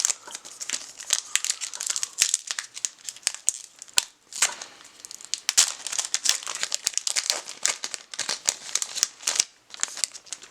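Plastic wrapper of a trading card pack crinkling and being torn open by hand, a dense run of crackles throughout.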